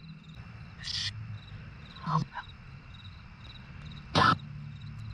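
Crickets chirping in a steady, evenly repeating pulse, broken by about four short, choppy bursts from a spirit-box app sweeping through radio noise, the loudest about four seconds in.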